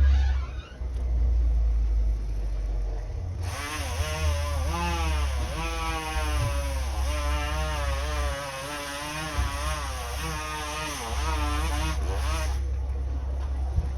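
Chainsaw running in the background, its engine pitch wavering up and down as it works, starting a few seconds in and stopping near the end. A steady low rumble lies under it throughout.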